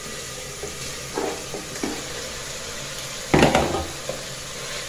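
Chicken pieces sizzling in hot oil in an aluminium pot, stirred with a spoon that knocks and scrapes against the pot, with a louder clatter about three and a half seconds in.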